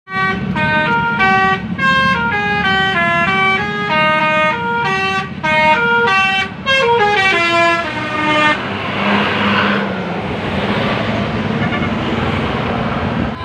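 Basuri telolet horn on a bus, its multi-trumpet air horns playing a quick stepping melody of clear notes with the engine running underneath. The tune stops after about eight and a half seconds, leaving a loud rushing noise.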